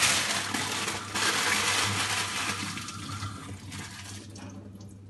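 Water running from a kitchen tap as baking paper is wetted under it, loudest for the first three and a half seconds and then dying away.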